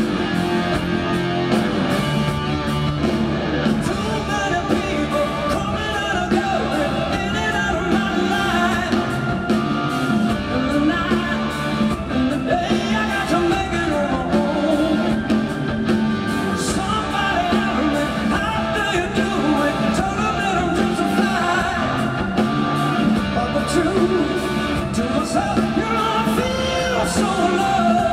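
Hard rock band playing live: a male lead voice singing over electric guitar, keyboard and drums, recorded from the crowd in a stadium.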